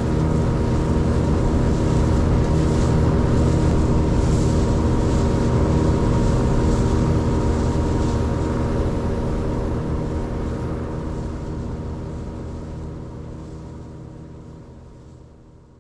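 A motor engine running at a steady hum that fades out over the last several seconds.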